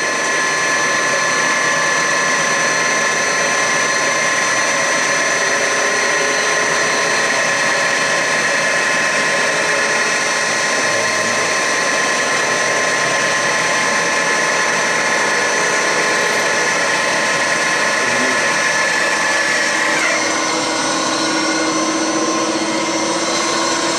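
Block-decking machine's rotating cutter head running steadily while it machines the cast-iron deck of a Ford Model A engine block, a continuous whine over a grinding hiss. About 20 seconds in the tone changes, a high whine giving way to a lower hum.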